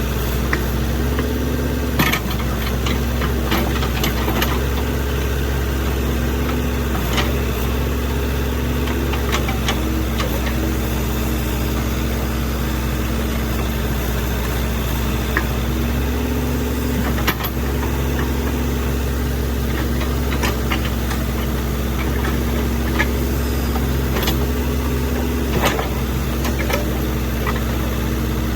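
JCB excavator's diesel engine running steadily under load, with scattered sharp knocks and clatters every few seconds.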